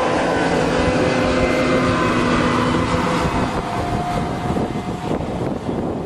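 A John Deere combine harvester's engine and machinery running steadily, with a whine of several tones that fades out about halfway. Wind buffets the microphone towards the end.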